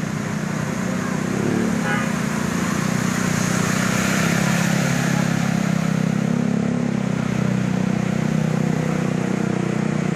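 A bus engine running steadily close by, a low even drone with street noise around it.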